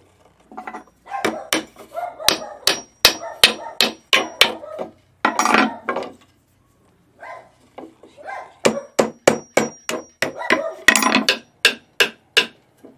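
Hammer tapping beech-wood teeth into the holes of a wooden hay rake's head: two runs of quick, sharp strikes, about three a second, with a pause of a couple of seconds between them.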